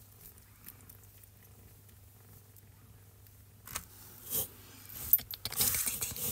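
Rustling and scratching as a hand plays with a kitten in a cardboard box: the kitten's paws and claws scuffing at fingers and cardboard. Faint at first, then a run of scratchy clicks and rustles that grows louder and busier near the end.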